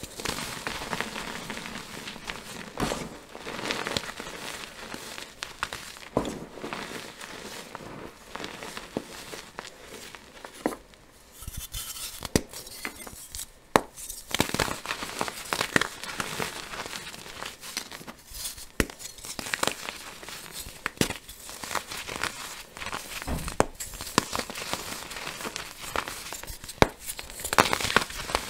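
Blocks of dyed, powder-coated gym chalk being squeezed and crumbled in bare hands: dense crisp crunching with frequent sharp snaps as the blocks break apart. A brief lull comes about eleven seconds in, and a few louder snaps near the end.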